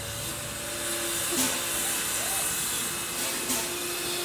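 Narrow-gauge steam locomotive No. 12 standing with steam hissing off it, over a steady hum, with two brief louder bursts of steam.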